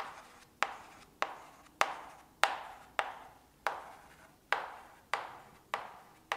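Chalk tapping on a chalkboard as dots are marked one at a time, about eleven sharp taps at an even pace of roughly one and a half a second, each with a short ringing tail: electron dots being drawn around fluorine atoms in a Lewis structure.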